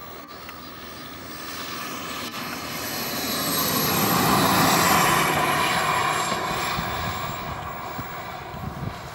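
Twin ATJ-170ti model jet turbines of a giant-scale RC MiG-25 whining and rushing as it flies past low. The sound grows louder to a peak about halfway through, then fades as the jet moves away, its high whine dropping in pitch.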